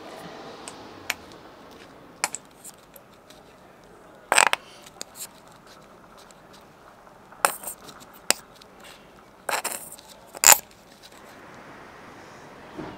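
Scattered plastic clicks and scrapes from gloved hands handling a small plastic mixing cup and lid for gelcoat. They are a handful of sharp ticks a second or more apart, the loudest about ten seconds in.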